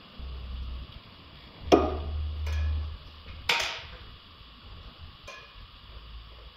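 Metal party-tent frame poles knocking and clanking together as they are handled and slotted into one another. There are four knocks, two of them loud and ringing, about a second and a half apart, with low rumbling handling noise.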